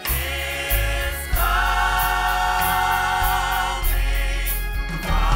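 A gospel choir singing in harmony over band backing with a steady bass and beat. It holds one long chord through the middle, and a new chord comes in near the end.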